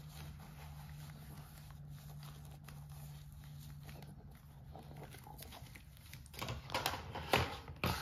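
Faint handling of a velcro-backed microfiber mop pad being pressed flat onto a plastic mop plate, with light rustles and clicks over a low steady hum that stops about five seconds in. Near the end come louder knocks and rustles as the plastic parts are moved and handled.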